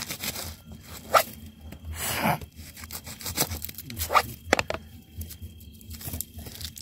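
Kitchen knife cutting a red onion on a plastic cutting board: a handful of sharp taps of the blade on the board, with a longer tearing crunch about two seconds in.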